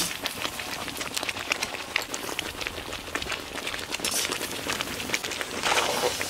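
Thick spinach purée bubbling and spitting in a metal pan over the fire as ghee is drizzled in, a steady crackle of many small pops. Near the end a metal spatula stirs through it, briefly louder.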